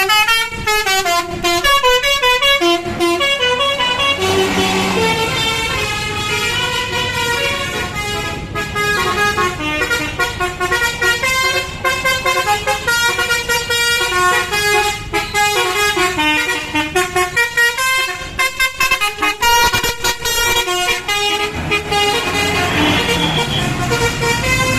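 Basuri-type telolet bus horns playing quick tunes, one pitched note after another with short gaps. Near the end a low rising tone comes in underneath.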